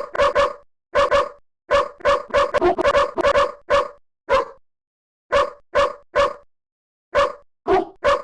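A dog barking: about twenty short, sharp barks in quick runs, with pauses of a second or so between runs. The gaps between barks are completely silent, as in an edited sound-effect track.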